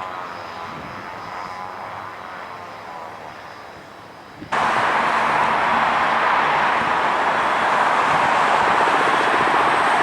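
Jet aircraft engines fading away as the aircraft passes. About halfway through, the sound cuts abruptly to a much louder, steady rushing roar.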